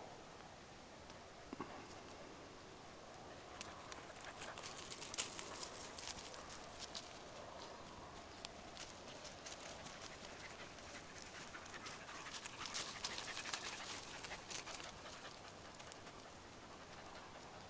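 A dog panting close by, a rapid run of short breaths that is loudest through the middle of the stretch and fades near the end.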